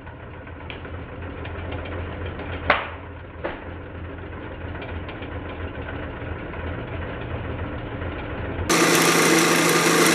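Slowed-down sound of a wood lathe running, heard as a low drawn-out hum, with a sharp knock about three seconds in and a weaker one just after. Near the end the lathe's electric motor is heard again at normal speed with a steady hum.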